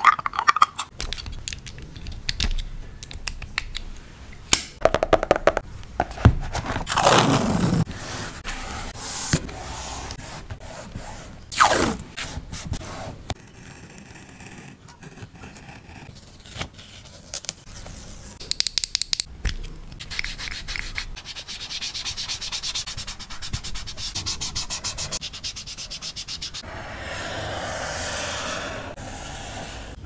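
Close-up paper-crafting noises: strips of washi tape peeled and pressed onto paper, a craft knife trimming the tape, and repeated rubbing and scratching on the paper. There is a quick run of ticks around the middle.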